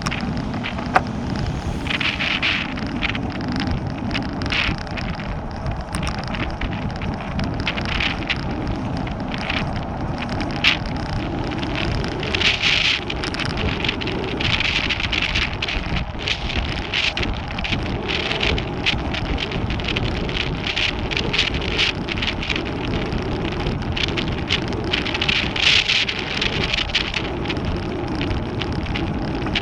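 Wind buffeting the microphone of a camera on a moving bicycle, over a steady rumble of tyres on asphalt, with frequent irregular crackles and clicks.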